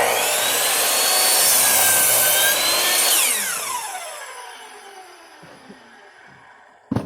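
Electric chop saw running and cutting through a board, its motor whine sagging slightly under the cut. About three seconds in, the trigger is released and the blade spins down with a long falling whine, and a sharp knock comes near the end.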